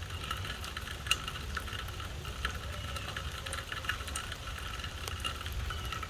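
Honeybees buzzing as foragers fly in and out of the hive entrance in the rain, a steady hum, with scattered sharp ticks of raindrops landing.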